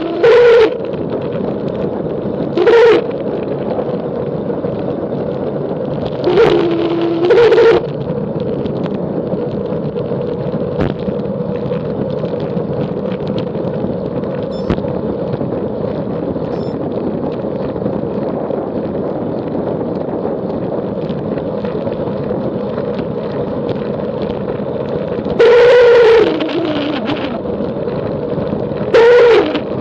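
Steady wind and road rush during a descent, broken five times by a loud pitched howl lasting half a second to a second and a half, a couple of them sliding down in pitch as they fade: the strange noise that comes with a vibration while descending.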